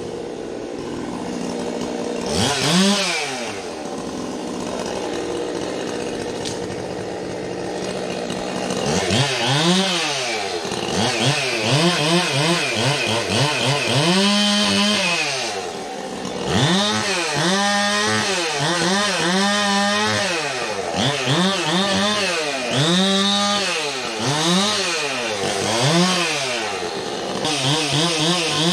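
Two-stroke chainsaw idling, revved once about two seconds in, then revved up and back down again and again in short bursts of about a second each from about nine seconds in.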